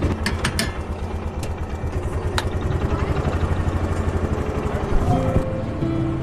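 Vehicle engine running with a steady low pulsing rumble. A few sharp clicks come in the first couple of seconds, and a single knock about five seconds in.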